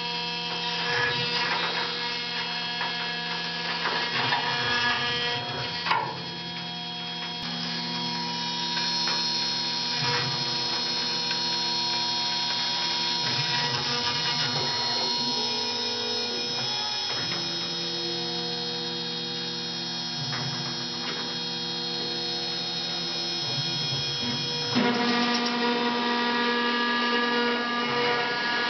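CNC milling machine's spindle cutting aluminium: a steady whine made of many held tones over a gritty cutting noise, with a sharp click about six seconds in and the tones shifting near the end.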